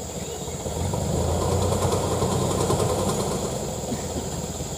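Diesel engine of a loaded Ragasa 4x4 dump truck running and picking up revs about a second in, holding there for a couple of seconds before easing slightly, as it drives the PTO winch to pull in the steel cable.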